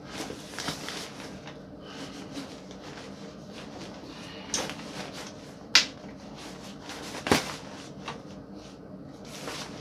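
Rustling and knocking as a Ravin R10 crossbow is shifted and settled into its padded soft case, with two sharp clacks about six and seven seconds in.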